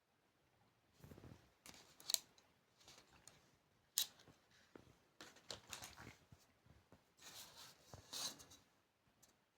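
Scattered light clicks, taps and rustles of objects being handled, with two sharper clicks about 2 and 4 seconds in.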